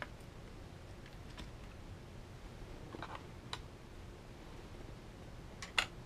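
Scattered light clicks and taps of fingers and small tools handling parts inside an opened laptop's case, a few spread through, with the loudest sharp click near the end.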